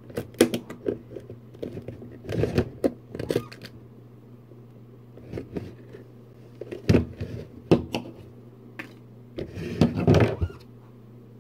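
Scissors cutting through a hard plastic bin lid: a quick run of snips and cracking plastic, then scattered clicks and knocks as the plastic is handled, with a short cluster near the end.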